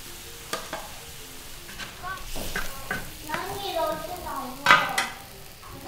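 Beer poured from a can into a hot wok of chili-oil sauce, sizzling and bubbling, with a metal spatula scraping and knocking against the iron wok several times. The loudest knock comes near the end.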